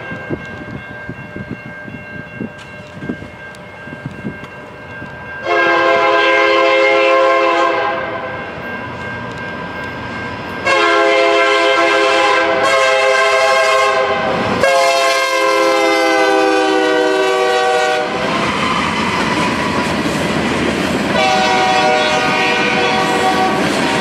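Freight train passing: the locomotive's multi-chime air horn sounds four long blasts of two to four seconds each, over the clatter of wheels on rail joints and the rumble of the passing cars.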